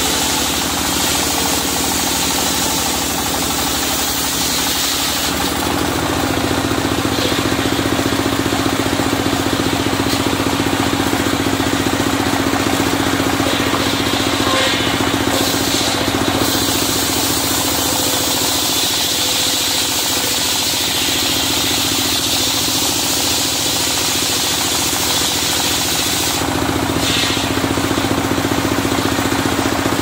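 Engine of a serkel circular sawmill running steadily with the saw, growing louder about five and a half seconds in.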